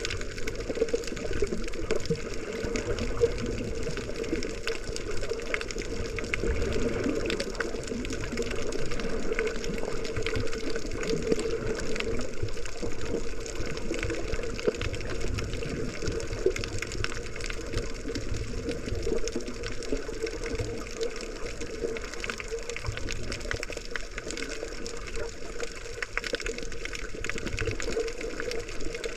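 Underwater sound picked up by a GoPro while snorkeling: a steady muffled wash of water with a dense crackle of small clicks over it.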